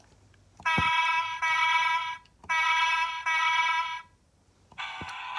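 Electronic sound effect from the Road Rippers 4x4 SUV toy's sound chip, played through its small speaker: a buzzy electronic tone sounds in two pairs of blasts. After about a second of quiet, a busier electronic tune starts near the end.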